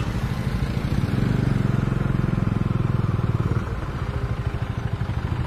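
Motorcycle engine heard from the rider's own bike, running at low speed in stop-and-go traffic. Its low, fast pulsing grows stronger about a second in and eases off a little past halfway.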